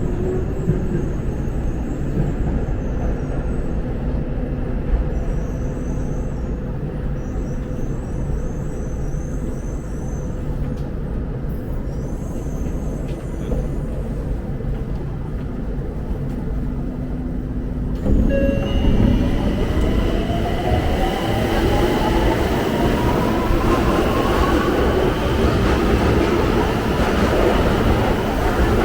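Electric train heard from inside the carriage: a steady low rumble, then about eighteen seconds in the sound jumps louder as the traction motors whine up steadily in pitch while the train accelerates.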